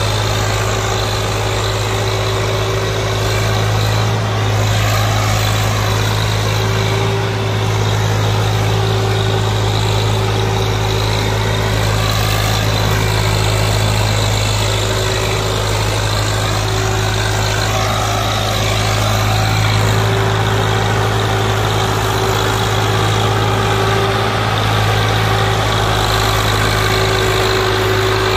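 Swaraj 855 tractor's three-cylinder diesel engine running steadily under heavy load as it pulls a fully loaded trolley of soil.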